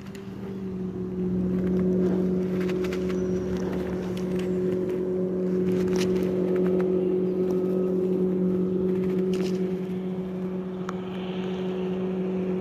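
An engine running at a steady, unchanging pitch, with a few sharp clicks over it.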